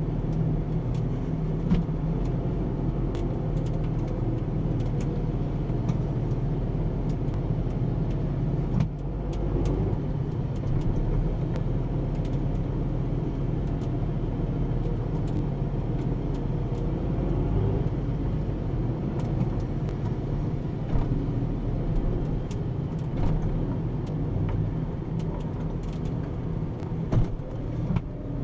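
Tractor engine running steadily under load, heard from inside the cab as a low, even drone, with frequent light clicks and knocks over it.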